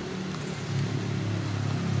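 A motor vehicle's engine running steadily with a low hum, its pitch dropping a little about a second in.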